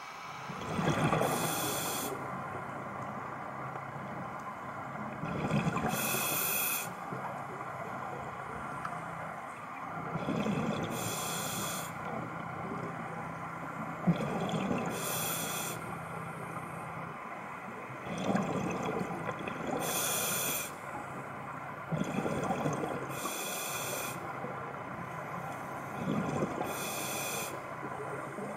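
Scuba diver breathing through a regulator underwater, about seven breaths. Each inhale draws a short hiss through the regulator, and each exhale sends out a gurgling rush of exhaust bubbles, in a slow, even rhythm about every four seconds.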